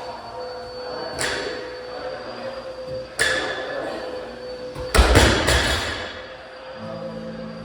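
Several sharp knocks: one about a second in, another about three seconds in, and a louder cluster of knocks and thuds about five seconds in, over a faint steady tone.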